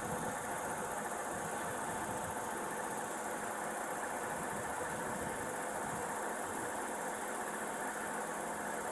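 Car engine idling with a steady hum.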